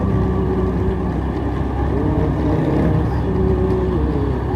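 Old Honda CD70 motorcycle's small single-cylinder four-stroke engine running steadily while riding along a street.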